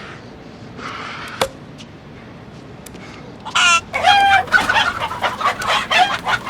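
Cartoon sound effect of a chicken squawking loudly about halfway in, then clucking in a rapid, frantic run; earlier, a short swish and a sharp click.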